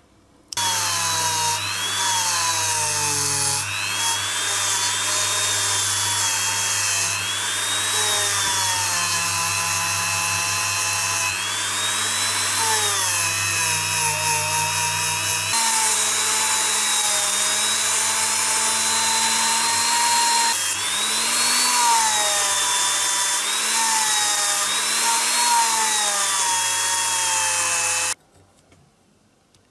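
Handheld rotary tool with a small wire brush wheel running against zinc diecast toy-car parts. It starts about half a second in, its whine wavers up and down in pitch as the brush bears on the metal, and it cuts off suddenly near the end.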